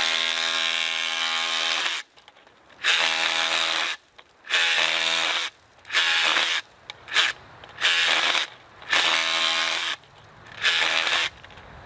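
Makita XRH01 18V brushless SDS-Plus rotary hammer running with a chisel bit, chipping into old concrete. It hammers in about eight short bursts separated by brief pauses, the first about two seconds long and the rest shorter: light scaling and chipping.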